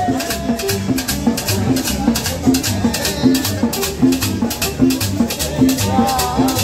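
Live band playing upbeat dance music, with a quick steady rattling percussion rhythm over a repeating bass line and drums.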